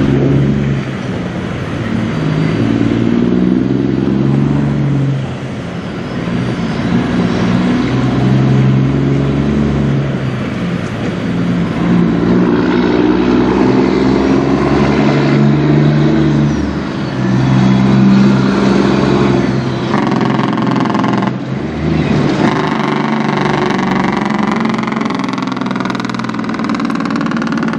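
1999 Peterbilt 379 semi tractor's diesel engine pulling two hopper trailers past, working up through the gears: the engine note breaks off briefly at each shift and climbs in pitch again.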